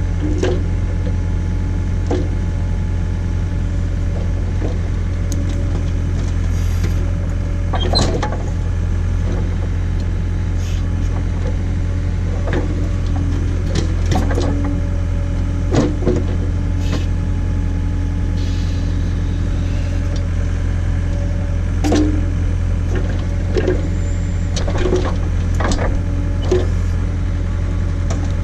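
John Deere 317 skid steer's diesel engine running steadily under hydraulic load while its backhoe digs, with scattered irregular knocks and cracks from the bucket working the stump and its roots.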